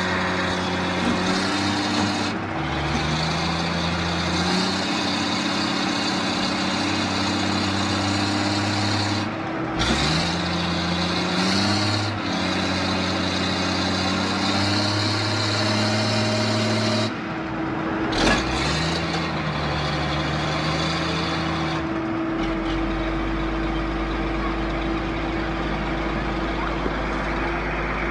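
Heavy diesel engines of construction machines revving under load while pulling on a sunken garbage truck, the engine pitch climbing and holding in steps several times. About two-thirds of the way through the revving drops away, leaving a steady low engine drone.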